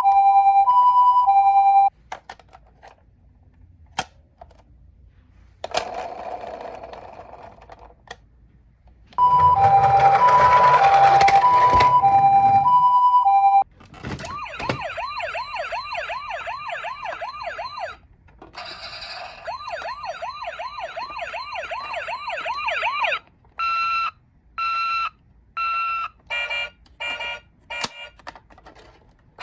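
Toy ambulance electronic sirens: a two-tone hi-lo siren, then a fast-warbling siren, a slower warbling one, and a run of short beeps that speed up near the end. During the second hi-lo siren there is a rattling noise, as of the toy's wheels rolling.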